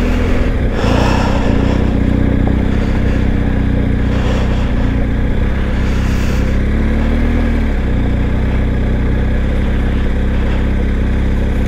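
BMW GS Adventure motorcycle engine running at low, steady revs while riding slowly, with small rises and falls in the revs about a second in and again around seven seconds.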